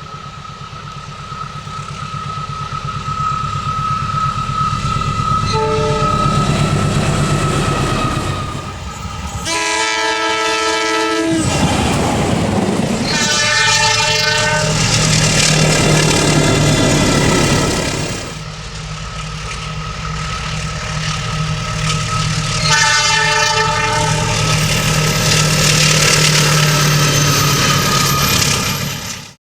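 Diesel-hauled train running past with the locomotive engine rumbling steadily and the horn sounding four times: faintly about six seconds in, then long and loud around ten seconds, again around thirteen seconds, and once more near the end. Wheels and carriages roll past between the blasts, and the sound cuts off suddenly at the end.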